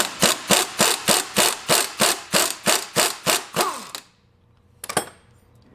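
Impact wrench hammering on the forcing screw of a three-jaw bearing puller: a steady train of sharp clacks, about four a second, pulling the old wheel bearing's inner race off the hub. It stops about four seconds in, when the race comes free, and there is one more short clack near five seconds.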